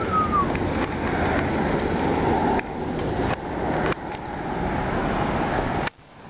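Rushing, rumbling noise of wind on the microphone and tyres rolling while riding a bicycle along a concrete sidewalk, cutting in and out abruptly a few times. A brief falling squeak comes at the very start.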